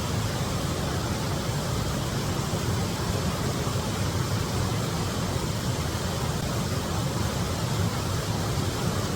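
Waterfall rushing: a steady, unbroken roar of falling water with no rhythm or change in level.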